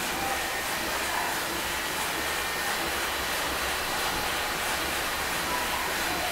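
Steady, even hiss of escaping steam on the Gimson compound beam pumping engine as it is readied to start.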